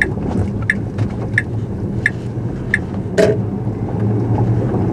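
Tesla Model S cabin noise while rolling slowly over a rough surface: a steady low rumble from the tyres and road, with the turn-signal indicator ticking about three times every two seconds until it stops near the three-second mark, then one sharper knock a moment later.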